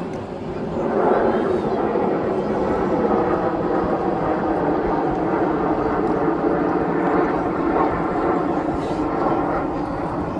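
Display aircraft engine noise at an airshow, steady and loud, swelling about a second in and holding.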